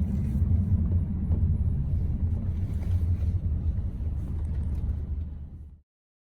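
Steady low rumble of a moving vehicle, with faint ticks and rattles over it. It cuts off abruptly near the end.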